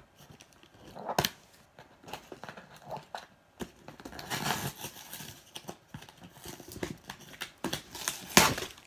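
Scissors cutting and scraping along packing tape on a cardboard box, the cardboard rubbing and knocking in irregular strokes; the loudest scrape comes near the end.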